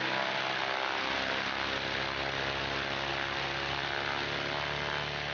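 A machine running steadily: an even hiss over a hum of many steady tones.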